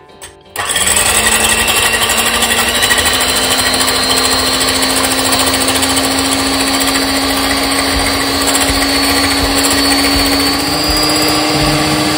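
Electric hand mixer switched on about half a second in, its motor running steadily with a whine that creeps slightly higher in pitch as its twin beaters whip egg whites into foam in a glass bowl.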